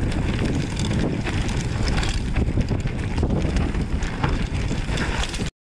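Wind buffeting the microphone of a mountain bike racing down a rough downhill trail, with a steady rumble and scattered rattles and knocks from the bike over the ground. It cuts off suddenly near the end.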